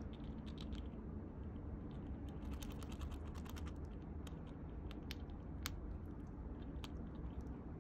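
Eurasian red squirrel cracking and gnawing pine nut shells with its teeth: irregular small clicks and crunches, with a quick run of clicks around three seconds in.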